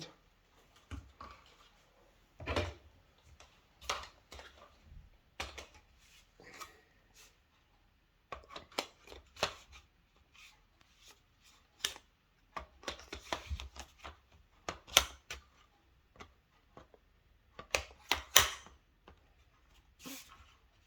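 Plastic vacuum-cleaner suction head and parts being handled: irregular clicks, knocks and light rattles with short gaps between them, the loudest about fifteen and eighteen seconds in. The vacuum's motor is not running.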